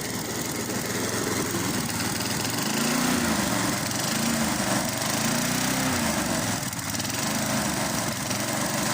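The restored Tecumseh single-cylinder engine on a rotary lawn mower running steadily and evenly, its pitch swelling and dipping slightly a few times midway.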